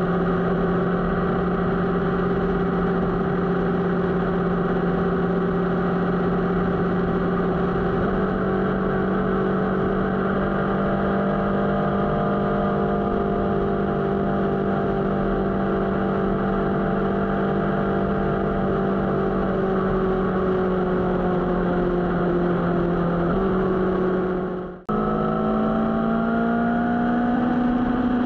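Motorcycle engine running at a steady cruising speed, its note stepping up slightly about a third of the way in. After a brief break in the sound near the end, the engine note rises and falls with the throttle.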